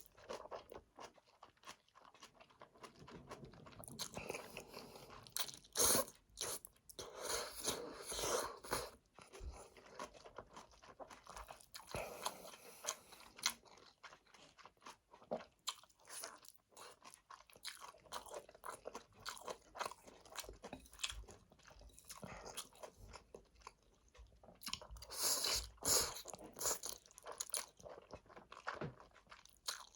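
Close-miked eating of Chapagetti black-bean noodles: a person chewing and biting, with irregular wet clicks. Denser runs of louder mouth sounds come a few seconds in and again near the end.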